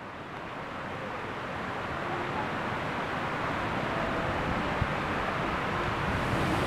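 Steady background ambience, an even hiss-like hum with faint held tones under it, fading in from silence and slowly growing louder.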